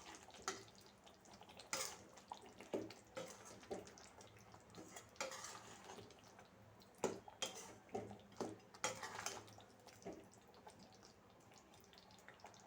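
A spoon clinking and scraping against a cooking pot while stirring a thick chicken gravy, in irregular knocks that thin out near the end.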